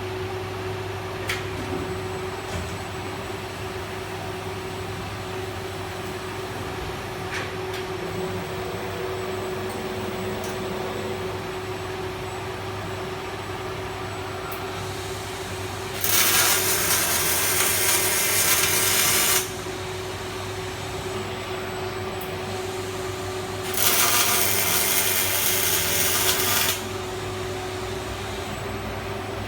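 Robotic Fronius CMT (cold metal transfer) welding arc on steel tube: two welds of about three seconds each, heard as a loud, even hiss, over a steady machine hum.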